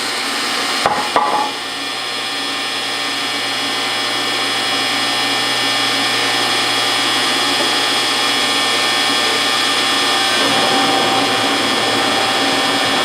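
1956 Axelson metal lathe running steadily, its motor and gearing giving a whine of several steady tones over a mechanical hum. A couple of short clicks about a second in, the sound grows slightly louder over the next few seconds, and its tone shifts about ten seconds in.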